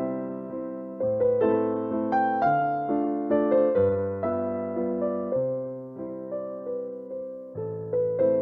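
Background music: a gentle electric piano melody over a chord, with notes struck about once a second and fading away after each.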